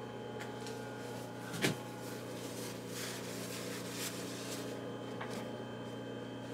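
Hands gripping a machined steel part in a shop towel to unscrew it from its threaded arbor in the lathe chuck: faint rubbing and handling clicks, with one short knock about a second and a half in, over a steady low hum.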